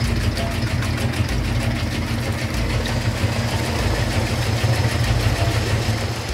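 Sound effect of a cement mixer truck's heavy engine idling: a steady, loud, low rumble with a faint fast ticking above it.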